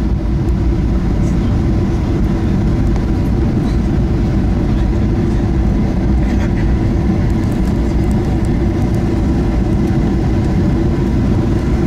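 Steady loud rumble inside a Boeing 737-800's cabin as the airliner comes in to land: engine and airflow noise, strongest in the low range, holding level without a sharp bang or a clear rise or fall.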